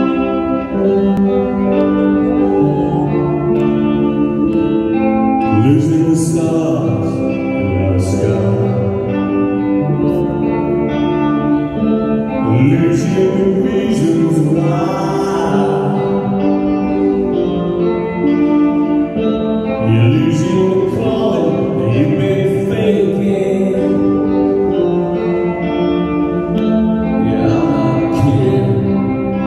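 A rock band playing live, with held guitar and keyboard chords under a male lead vocal that comes in about six seconds in and carries on in phrases.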